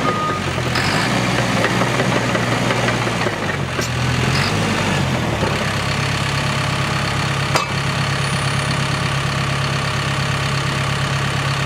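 2018 Cat D5K2 XL crawler dozer's diesel engine running. Its backup-alarm beep cuts off just after the start, the engine note drops about four to five seconds in, then it holds a steady idle. One sharp click comes about two-thirds of the way through.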